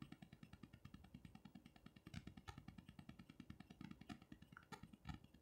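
Near silence: a faint low pulsing hum with a few soft clicks.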